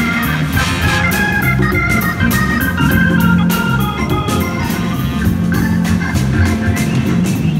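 Live band music with an organ holding sustained chords to the fore, over drums keeping a steady beat.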